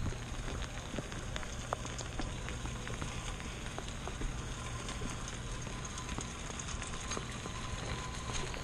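Steady rain falling on pavement and grass, with scattered close drops ticking through it over a low rumble.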